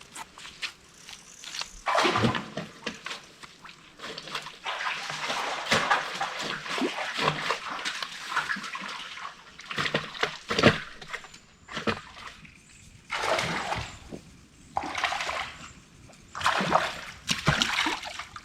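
Water splashing and sloshing in shallow stream water, in repeated irregular bursts with short pauses between them.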